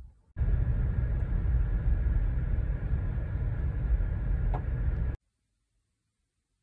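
Car driving on a dirt road, heard from inside the cabin: a steady low rumble of tyres and engine. It starts abruptly about half a second in and cuts off suddenly about five seconds in.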